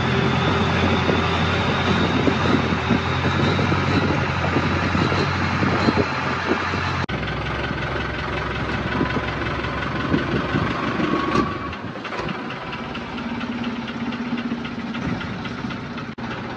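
Long-tail boat engine running steadily under way. The sound changes abruptly about seven seconds in and gets a little quieter about twelve seconds in.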